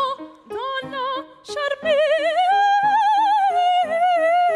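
Soprano voice singing operatically with strong vibrato over piano accompaniment: short phrases first, then one long high note held from about two seconds in.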